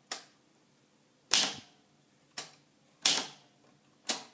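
Underwood 319 manual typewriter keys struck one at a time: five sharp clacks of the typebars hitting the platen, roughly a second apart, the third one softer.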